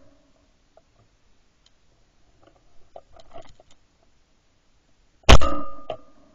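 A single shotgun shot from a Fabarm Axis fired at a flying gamebird, about five seconds in, ringing out and dying away over about a second with a short echo. Before it come only a few faint crackles.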